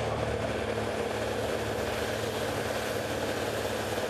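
Vermeer tracked horizontal grinder running, a steady, even machine drone that does not change.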